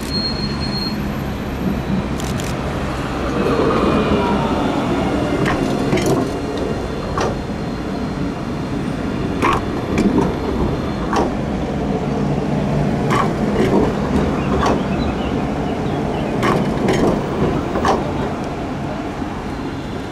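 A tram running past on grass-covered track: a steady rumble with an electric whine that falls in pitch a few seconds in, then a run of sharp clicks from the wheels on the rails as the cars go by.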